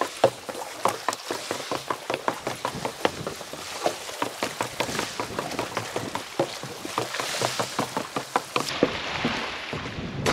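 Footsteps going down wooden stairs: an irregular run of sharp knocks, a few each second.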